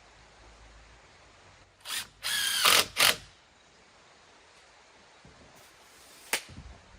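Power drill running in three short bursts, the middle and longest one a whine of about half a second. A single sharp click follows a little after six seconds.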